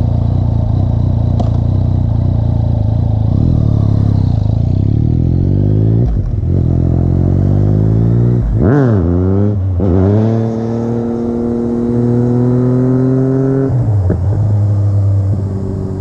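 A Yamaha FZ-09's three-cylinder engine, running through an Akrapovic exhaust with the baffle in, revving hard and climbing in pitch through the gears with two shifts. It then holds at steady high revs for a few seconds before the throttle is closed near the end.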